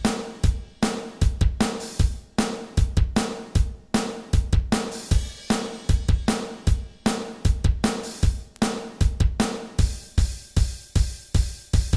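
Drum kit played live in a steady driving beat: bass drum and snare hits with cymbals and hi-hat.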